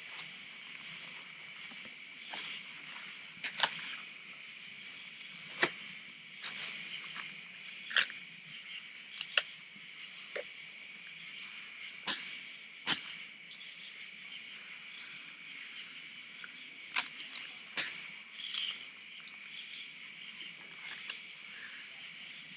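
Steady night chorus of crickets and other insects, with scattered brief crisp clicks and rustles from lettuce leaves being handled and folded around food.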